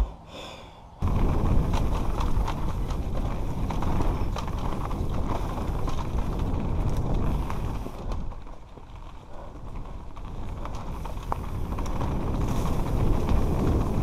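Mondraker downhill mountain bike descending a dirt trail at speed, heard from a helmet camera: wind on the microphone, tyres rumbling over the dirt and the bike rattling and clicking. It starts suddenly about a second in and eases briefly around the eighth second before building again.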